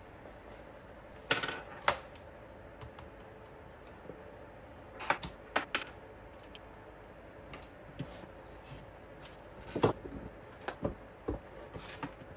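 Things being handled and set down on a desk: scattered taps, clicks and knocks as a tablet and its folding case are moved about, the loudest knocks about two seconds in and near ten seconds, over a faint steady hum.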